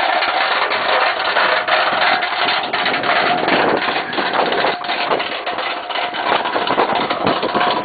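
Plastic snow shovel blade scraping along asphalt as it is pushed, a continuous rough grating with many small clicks and knocks.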